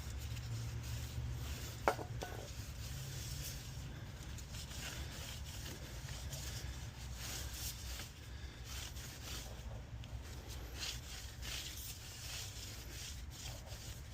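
A cloth rubbing over a motorcycle brake disc in irregular wiping strokes, with one sharp click about two seconds in, over a steady low hum.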